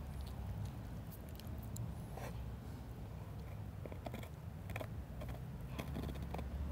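A husky gnawing a large femur bone, its teeth cracking and scraping on the bone in short, irregular clicks, over a steady low rumble.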